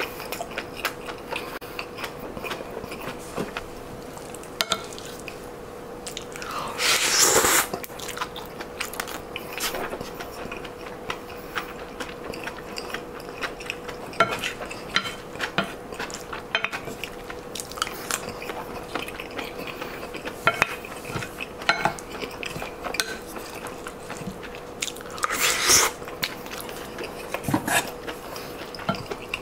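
Close-up eating sounds: chewing and biting, with a wooden spoon clicking and scraping on a ceramic plate in many short, sharp strokes. Two louder rushing sounds come about seven seconds in and again near the end.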